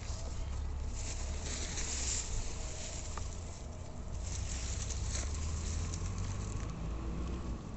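Splashing and rustling of water plants as a hooked fish is pulled in to the bank, in two noisy stretches over a steady low rumble.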